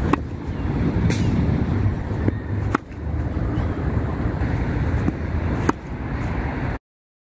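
Tennis racket striking tennis balls in forehand and backhand ground strokes: about four sharp hits, a second or more apart, over a steady low rumble. The sound cuts out abruptly near the end.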